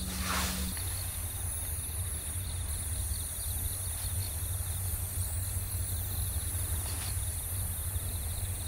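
Insects chirping steadily in dry grass, a fast pulsing trill over a steady low rumble.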